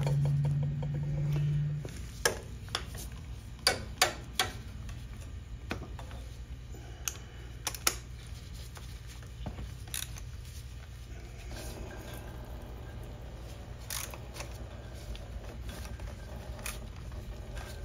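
Sparse light clicks and taps of a hand tool working at a tractor's oil filter, bunched in the first few seconds and then a few seconds apart, over a low steady hum.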